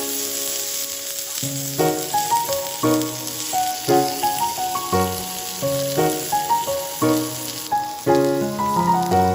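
Food sizzling as it cooks, a steady hiss that stops about three-quarters of the way through, under background music.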